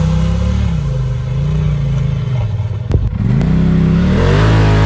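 Side-by-side UTV engine revving up and down as it crawls up rock ledges, with a sharp knock about three seconds in and a rise in revs near the end.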